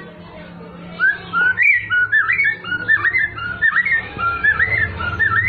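White-rumped shama singing: a quick run of short, clear whistled notes that bend up and down, starting about a second in.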